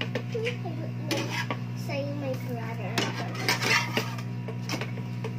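Metal utensils clinking and scraping: a spoon stirring pancake batter against a plastic mixing bowl, and a spatula working a frying pan, in irregular clicks and scrapes over a steady low hum.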